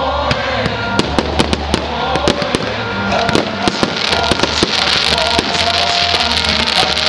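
Fireworks going off: a rapid, irregular string of sharp bangs and cracks, joined about four seconds in by a dense hissing crackle, with music playing underneath.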